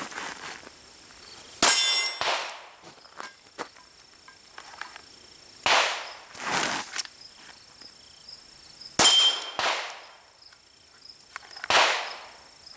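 Pistol shots a few seconds apart, five in all. Two of them are followed by a ringing metallic clang, steel targets being hit.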